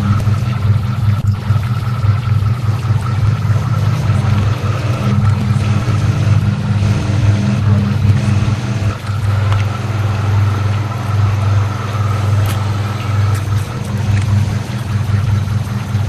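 Experimental electronic soundtrack made from processed dishwasher sounds and generated tones: a loud, steady low droning hum that swells and fades every second or two, with a fainter high steady tone above it.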